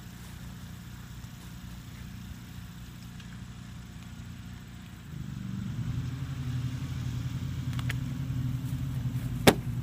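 An engine running steadily, growing louder about five seconds in. A single sharp knock sounds near the end.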